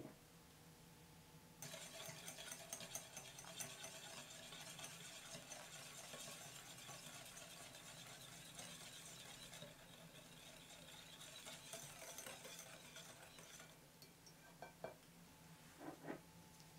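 Wire whisk beating egg-yolk batter in a glass bowl, a fast, faint scratchy clicking of the wires against the glass that stops about three-quarters of the way through. A few light knocks follow near the end.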